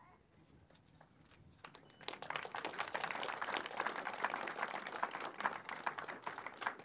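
A small crowd applauding, made up of many separate hand claps, starting about two seconds in after a quiet moment.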